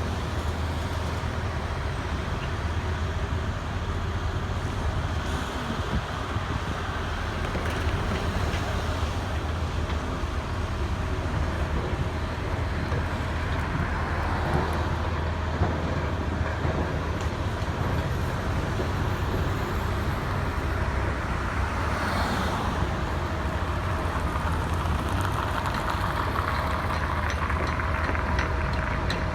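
Steady road traffic noise: cars and trucks going by on a busy street, with a continuous low rumble.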